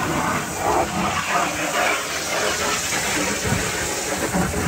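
Garden hose spray nozzle spraying water against a plastic storage bin, a steady hiss of spray, rinsing mud off the bin.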